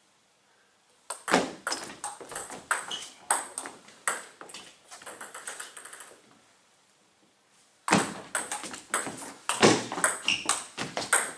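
Table tennis ball in play, quick clicks as it strikes the bats and bounces on the table. A rally starts about a second in and runs about five seconds; after a short pause a second rally starts.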